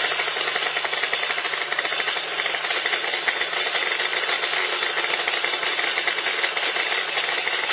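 188 cc twin-cylinder two-stroke engine running on a test stand on its first start-up: a fast, steady rattle of firing pulses.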